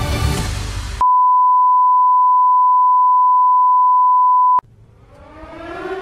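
Commercial music cut off by a loud, steady high-pitched beep tone lasting about three and a half seconds, the attention tone of a mock emergency alert broadcast. After a short gap, an alert siren starts winding up, rising in pitch and levelling off near the end.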